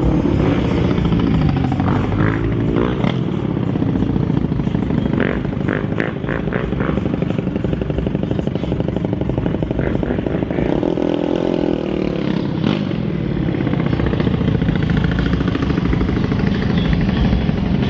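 Car engine running close by, a steady low rumble that swells briefly about two-thirds of the way through.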